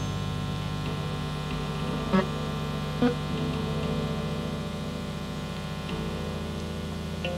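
Quiet, droning post-rock passage played live: layered sustained tones that hum steadily and shift chord a couple of times. Two short accented notes ring out about two and three seconds in.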